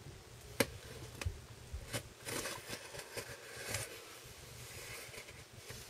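Small cardboard box being worked open by hand: a sharp click under a second in, then scraping and rustling of cardboard and packing tape for a couple of seconds.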